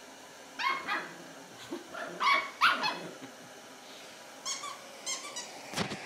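Puppy barking: about six sharp barks in the first half, then a few softer, higher yips, with a single knock near the end.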